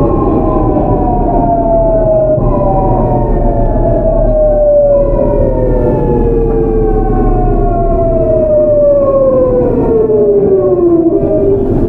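GEC Alsthom GTO VVVF inverter and traction motors of a Seoul Metro 8000-series train whining while braking. Several tones glide steadily down in pitch as the train slows, with a jump in pitch about two and a half seconds in. Wheel and rail rumble runs underneath.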